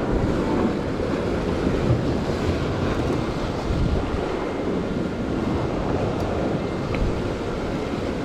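Sea surf washing against the rocky shore, a steady rush of waves, with wind buffeting the microphone.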